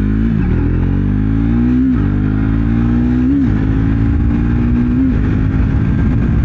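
Triumph Speed 400's 398 cc single-cylinder engine accelerating up through the gears. The revs climb, then drop at each upshift, four shifts about a second and a half apart.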